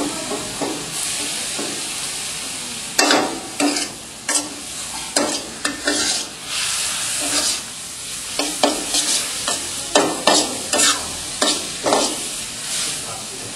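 Noodles sizzling steadily in a hot iron wok while a metal spatula scrapes and tosses them, striking the wok in sharp scrapes at irregular intervals, roughly once a second.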